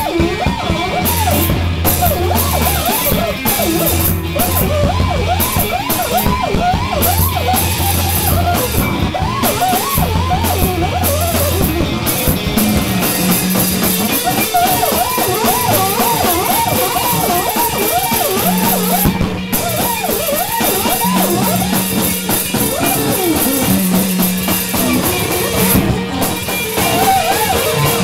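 Live rock band playing loud: a drum kit and guitars over a low bass line that moves up in pitch about halfway through.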